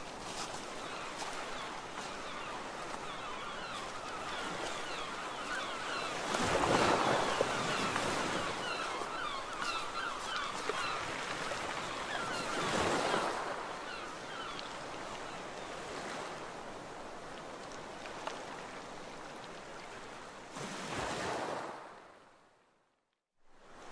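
Sea waves washing onto a beach: a steady surf hiss, with waves breaking louder about seven and thirteen seconds in and again near twenty-one seconds. Just before the end the sound dips to silence for about a second, then comes back loud.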